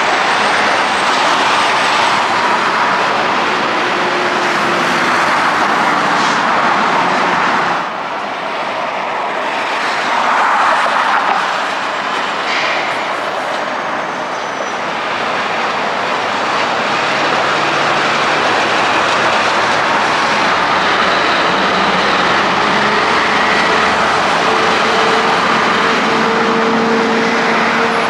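Heavy trucks passing close by on a highway: a continuous rush of tyre noise and diesel engines, briefly easing about eight seconds in, with a truck engine's steady hum growing stronger near the end.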